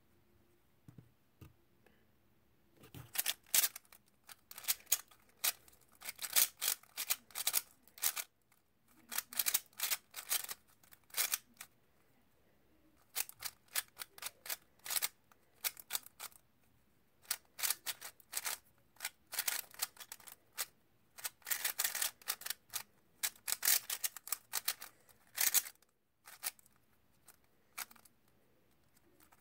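A MoYu WeiLong GTS 3x3 speedcube being turned fast in a timed speedsolve: quick runs of plastic clacking from the layers, broken by short pauses. The clacking starts about three seconds in, after a quiet inspection.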